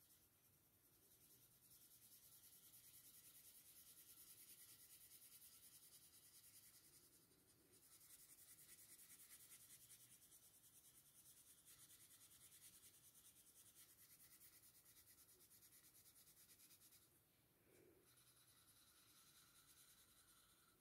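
Graphite pencil shading on drawing paper: a faint, fast scratching of short, even strokes. It dips briefly about seven seconds in and again a few seconds before the end.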